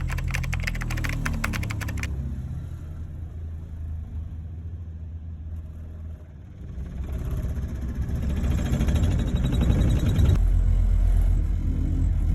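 Excavator-mounted pile driver working: a rapid rattling for about the first two seconds, then the machine's engine running and rising in revs, and a heavy, evenly pulsing low vibration from about ten seconds in.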